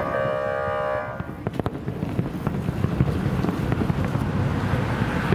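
A steady horn chord sounds and stops a little over a second in. Fireworks then keep bursting and crackling with a low rumble, many sharp reports in quick succession.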